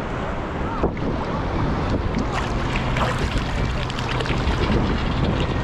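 Strong wind buffeting the microphone over moving shallow sea water, with small splashes and sloshing around the wader and the detecting scoop.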